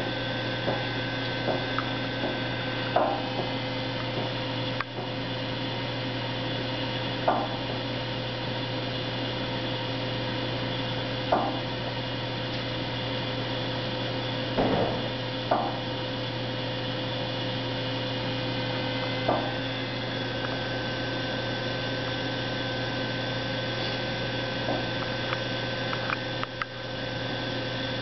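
Steady hum of the hydraulic load-test rig, with about a dozen short, sharp creaks at irregular intervals from the pre-cracked square steel tube as it is loaded.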